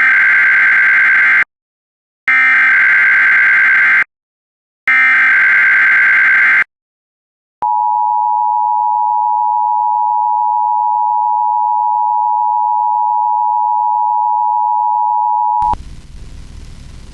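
NOAA Weather Radio emergency alert header: three short bursts of screeching digital data tones, then the long steady warning alert tone, which cuts off sharply about two seconds before the end, leaving faint radio hiss. It signals the broadcast of a tornado watch.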